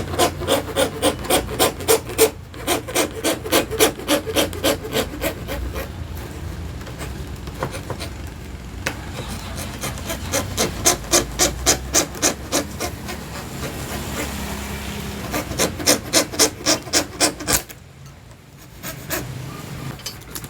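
A hand plywood saw cutting through an acrylic sheet with quick back-and-forth strokes, about four a second, in several runs with short breaks. The sawing stops about three seconds before the end.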